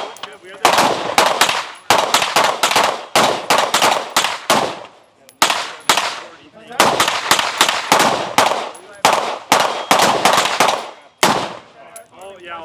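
Firearms shooting in rapid strings at a range, about three shots a second with short pauses between strings, each shot cracking and echoing briefly.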